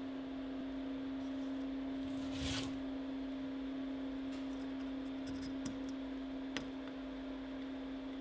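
A steady hum-like tone of one pitch throughout, with a few faint clicks and a short scrape about two and a half seconds in, and a sharper click later, as metal parts of the Maglite flashlight are handled and worked at.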